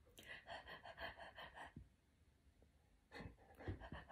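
Faint, quick panting of a dog, about five breaths a second, then a few softer breaths near the end.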